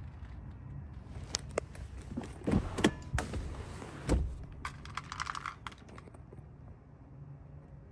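Handling noise inside an SUV's cabin: a string of light clicks and knocks with a few heavier thumps, then a short rattle about five seconds in.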